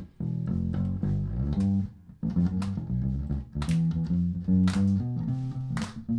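Live blues band playing an instrumental passage, the electric bass guitar line to the fore, with drum and cymbal hits about once a second.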